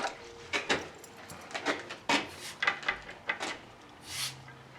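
Irregular light clicks and metallic clinks of tools and pipe fittings being handled, with a short hiss about four seconds in.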